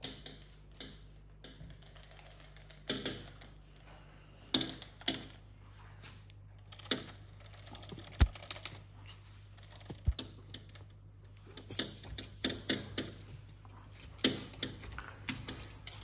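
Irregular light tapping and clicking, in small clusters, like claws or a beak on a hard surface, with two dull low knocks about eight and ten seconds in.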